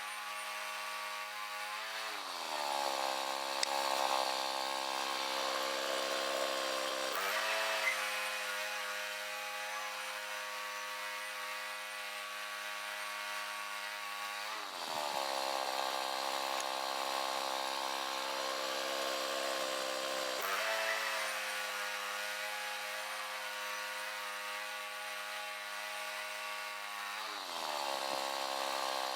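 Chainsaw mill ripping a log into boards, the two-stroke engine running at high revs. Its pitch drops three times as the chain loads up in the cut, and climbs back twice as the load eases.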